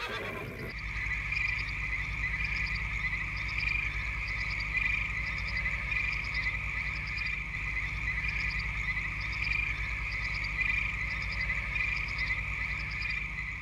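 Frogs calling in a steady chorus, with a call that repeats about once a second over a low, steady drone.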